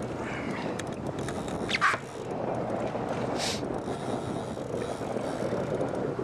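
Steady wind and sea noise on an open boat, with a short falling squeal about two seconds in and a brief hiss about three and a half seconds in.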